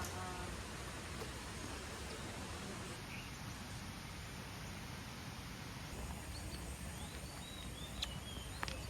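Outdoor rural ambience: a steady background hiss, with a few short bird chirps about six to eight seconds in and a light click or two near the end.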